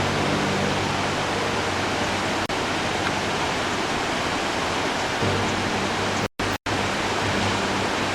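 Steady rushing noise of the 105-metre Tamul waterfall, cutting out twice briefly about six seconds in.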